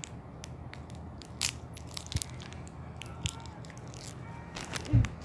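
Irregular crunches, clicks and crackles, with a sharper one about a second and a half in and a heavier knock near the end, over a low steady hum.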